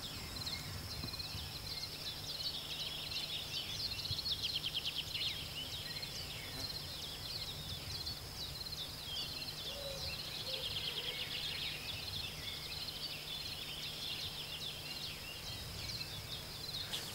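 Outdoor evening ambience of many small birds chirping and insects trilling in a meadow, over a faint steady low hum.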